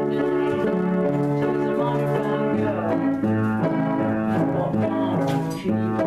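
Piano playing an instrumental passage without singing: held chords over a bass line that changes note about every half second.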